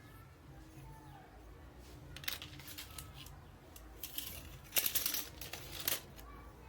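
A few sharp clicks and light rattles of small hard objects being handled: one about two seconds in, then a busier cluster from about four to six seconds in.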